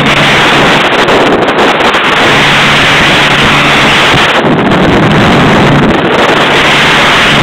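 Steady wind rushing over the microphone of a motorboat under way, with the boat's engine hum and water noise underneath.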